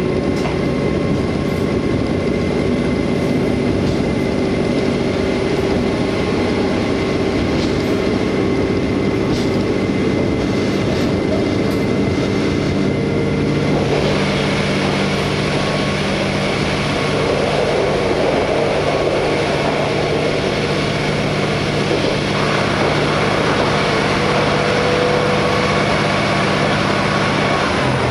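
KiHa 47 diesel railcar running: a steady engine drone over the rolling noise of wheels on rail. About halfway through, the engine note strengthens and the noise grows harsher.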